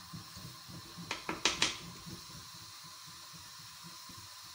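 Flour-coated chicken pieces sizzling steadily in hot oil in a wok as another piece goes in, with a few sharp clicks about a second in.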